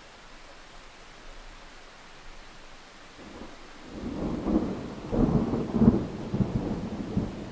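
Thunder rumbling in about four seconds in, a run of low rolling cracks that peak around five to six seconds and then fade, over a steady background hiss.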